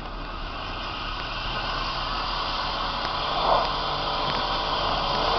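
Lifted Jeep Cherokee XJ's engine running under throttle as it pushes up through deep snow, growing gradually louder as it comes closer.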